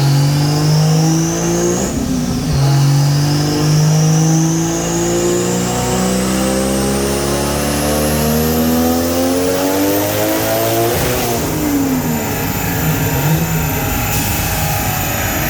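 Toyota 1JZ inline-six under full throttle in a dyno pull. It shifts up about two seconds in, then the revs climb steadily for several seconds with a high whine rising alongside. Near the end it lifts off and the revs fall away.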